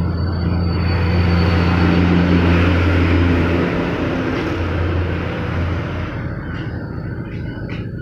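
Electric polishing machine running steadily with a low motor hum and a rushing buffing noise, easing off about six seconds in.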